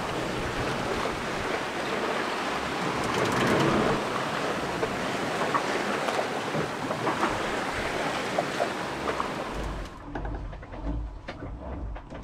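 Wind and sea rushing past a sailboat under way, a steady even noise. About ten seconds in it cuts off abruptly, leaving a low rumble and a few small clicks.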